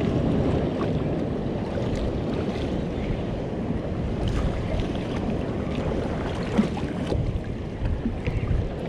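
Wind buffeting the microphone over the wash of the sea: a steady, low, rumbling noise, with a few faint ticks, the sharpest about six and a half seconds in.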